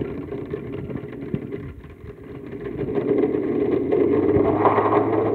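Vintage Osterizer blender motor running with ice cubes being crushed in the glass jar. About halfway through the speed dial is turned up and the motor and ice get louder.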